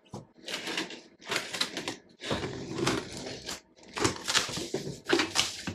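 Cardboard shipping box being opened by hand: about five short bursts of scraping and tearing, each under a second, with brief pauses between.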